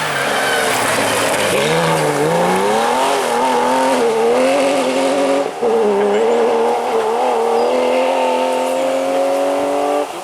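Rally car engine at high revs under hard driving, its pitch dipping and climbing with a brief break about halfway, then rising steadily as it accelerates.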